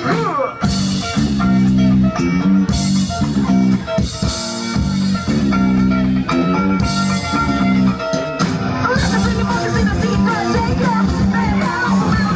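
A funk-rock band playing live: electric guitars, a bass line and a drum kit with cymbals, loud and steady throughout.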